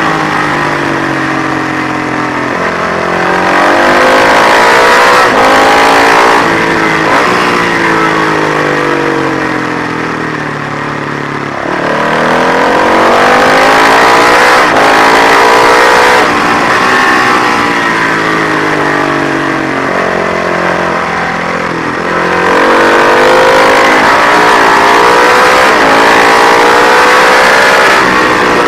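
Matchless G50 single-cylinder racing engine revving hard through the gears, its pitch climbing and dropping back at each upshift. Twice, about a third of the way in and again about two-thirds through, it eases off and the pitch falls as the bike slows, then it pulls hard again.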